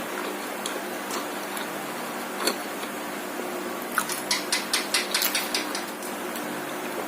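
Close-miked eating: a single sharp crunch, then a quick run of about a dozen crisp crunches from chewing crispy martabak, over a steady low hum.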